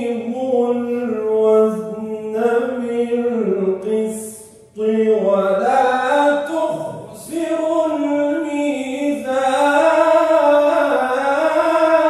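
A man reciting the Quran in a melodic, chanted style: long held notes that bend and ornament in pitch, in a single voice, with a quick break for breath about four and a half seconds in.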